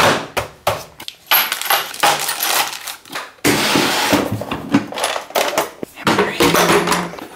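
Hard plastic tool cases and tools being handled and packed away: a cordless drill set into its moulded plastic case, then a plastic toolbox opened and tools clattering inside it, a run of sharp knocks that gets busier about halfway through.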